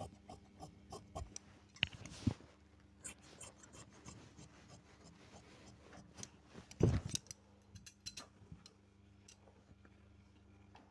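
Large tailor's shears cutting through cotton fabric in a run of short snips, with a louder thump about seven seconds in.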